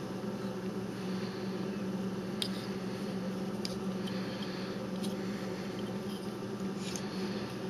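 Steady low background hum with a few faint, short clicks and rubs as a small 3D-printed plastic figure is turned over in the hands.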